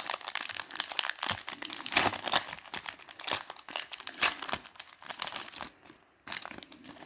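The wrapper of a 2020 NFL Optic trading-card pack being torn open and crinkled by hand: a dense run of irregular crackles that thins out near the end.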